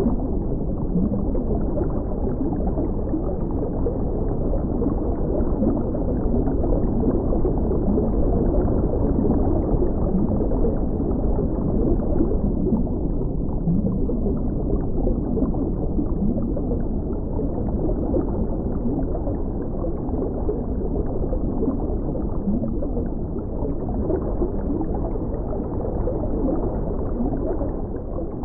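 Underwater ambience: a steady, muffled rumble of moving water with faint low bubbling and nothing high-pitched in it.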